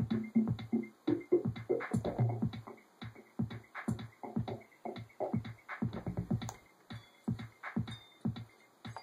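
Korg Electribe playing a live techno pattern: drum-machine hits with synth sounds in a steady rhythm. After about two or three seconds the fuller low and mid parts fall away, leaving a sparser run of percussion hits.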